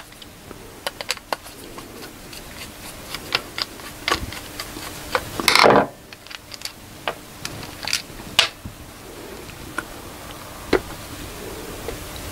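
Small metal parts of a lawn tractor carburettor clicking, tapping and rubbing as it is taken apart by hand, with a longer scrape about five and a half seconds in and a faint steady hum underneath.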